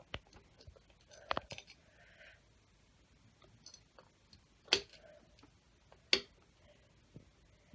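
Scattered sharp clicks and light knocks of small parts being handled while fitting a ceiling fan's light kit, the two loudest a little under five and about six seconds in.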